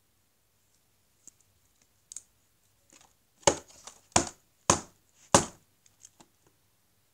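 Scissors cutting and jabbing into card toy packaging: four sharp cuts about half a second apart, starting about three and a half seconds in, after a few faint ticks.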